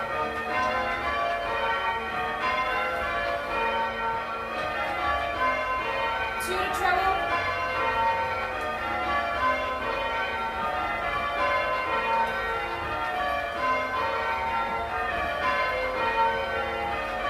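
A ring of eight church tower bells hung for change ringing, rung full circle. The bells strike one after another in a steady rhythm, their tones overlapping and ringing on.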